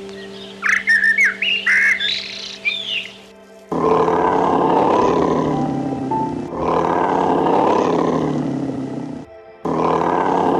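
Bird calls, a few quick squawks, over background music with held notes, then from about four seconds a loud, long animal roar in two stretches, with another beginning near the end.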